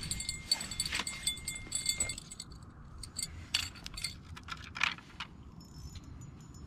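Small metal pieces of fishing tackle jingling and clinking in the hands, with a bright ringing for about the first two seconds, then a few sharp clicks and taps, and faint jingling again near the end.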